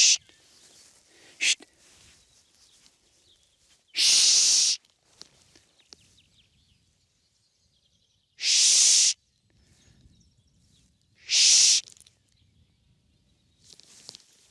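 A man hushing a dog with a drawn-out 'shh', three times a few seconds apart after a shorter one at the start: a trainer's hush to keep a pointing dog steady on its point.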